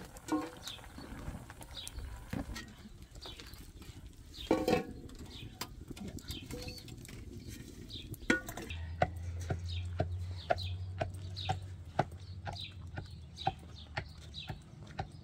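Birds cheeping over and over, with a clatter about four and a half seconds in. From about nine seconds in, steady wooden knocking about two a second as a wooden pestle is worked up and down in a wooden vessel.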